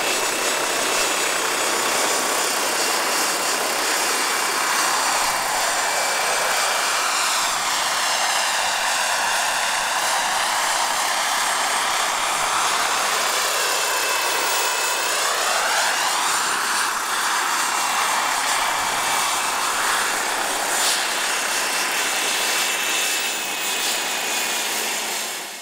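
Scale RC model Bell 47G-3B-1 helicopter flying, its rotor and drive making a steady rushing whine whose tone sweeps twice as it moves past.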